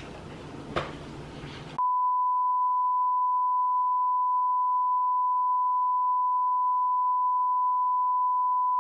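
Censor bleep: a steady 1 kHz beep tone that comes in about two seconds in, replacing the sound track, and holds unchanged to the end. Before it, a quiet room with a couple of soft clicks.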